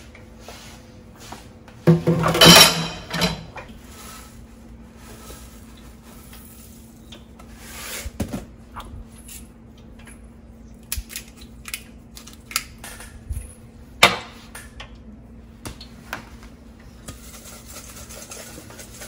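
Stainless steel mixing bowl clattering and knocking on a stone countertop as fried Brussels sprouts are seasoned and tossed in it, with a pepper grinder grinding over the bowl. A loud clatter comes about two seconds in and a sharp knock about fourteen seconds in, with a faint steady hum underneath.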